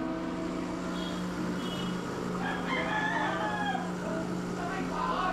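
Breville Dual Boiler's vibratory pump humming steadily as an espresso shot pulls. A rooster crows once from about two and a half to four seconds in.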